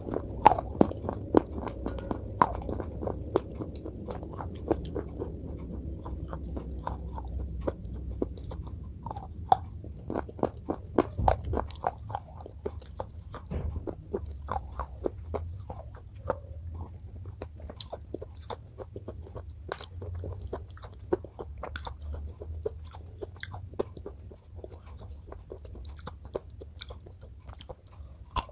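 Close-up biting and crunching of slate pencil pieces in the mouth: many sharp, irregular crunches and chewing sounds, somewhat denser in the first half, over a low steady hum.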